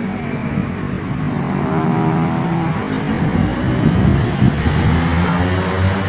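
A low engine hum runs continuously, its pitch shifting slowly up and down.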